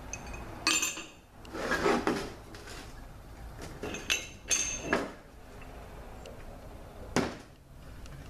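Steel parts of a Toyota A340 automatic transmission's oil pump (pump gears and pump body halves) clinking and scraping against each other and the metal workbench as they are handled and fitted together: a few sharp metallic clinks, with a longer scrape around two seconds in and a last clink about seven seconds in.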